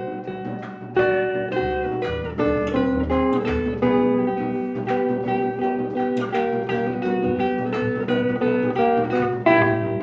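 Plucked guitar music being improvised: a run of picked notes and chords, each note ringing on, with a deep bass note for about two seconds early on.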